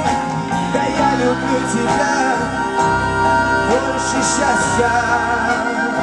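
Live band playing a slow ballad: a male voice singing a wavering line over electric guitar and band accompaniment.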